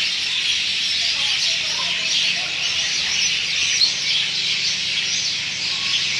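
Dense evening chorus of many birds chirping at once, a steady wash of high chirps with a few lower, separate calls scattered through it.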